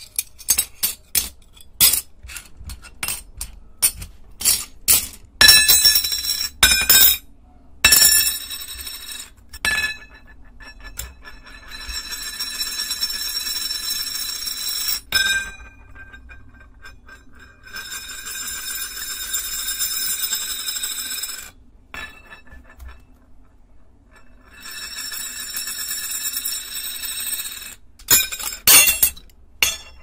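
Tazos clinking against each other in the hand and dropping onto a wooden table as a rapid run of sharp clicks, then tazos spun on the tabletop, each rattling steadily for three or four seconds as it wobbles down flat, three spins in all. A few more sharp clicks come near the end.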